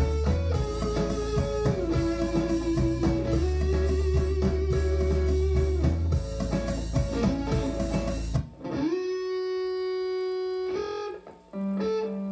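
Electric guitar playing a lead solo line of long held notes with vibrato over a backing track with a bass part. About eight seconds in the backing drops out and the guitar goes on alone with a few ringing notes.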